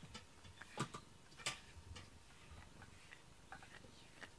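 Scattered faint clicks and ticks while a cat is brushed with a small pink grooming brush, two sharper ones about a second and a second and a half in.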